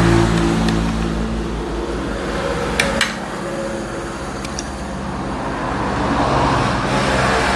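A motor vehicle engine running close by, its hum shifting slowly and swelling toward the end. A couple of light clicks come about three seconds in.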